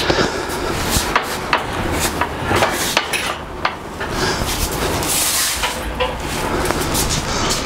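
Harbor Freight 1-ton shop crane pushed across a concrete floor with a heavy air compressor hanging from it in steel chains: the chains and crane clink and knock over and over above a low rolling rumble from the casters.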